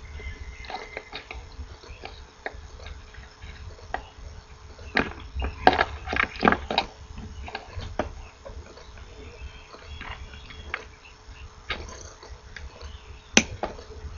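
Diagonal side cutters snipping off the excess component leads on a kit circuit board: scattered clicks, a quick cluster of them in the middle and one sharp snip near the end, over low handling rumble.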